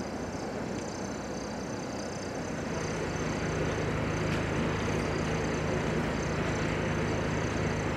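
Steady vehicle or machinery noise. A low steady hum comes in about two and a half seconds in and the sound grows a little louder.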